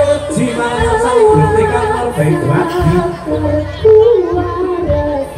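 Jaranan (kuda lumping) ensemble music: a wavering, ornamented melody over a steady low tone, broken by a few heavy drum strokes.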